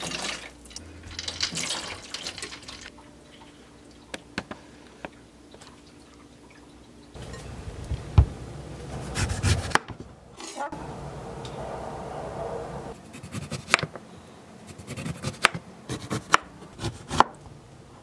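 Water and ice sloshing around lemons in a glass bowl, then a kitchen knife slicing a lemon into rounds on a wooden cutting board: a run of sharp knocks near the end as the blade meets the board.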